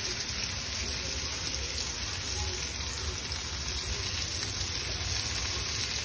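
Marinated prawns on skewers frying in shallow oil on a flat tawa, a steady sizzling hiss.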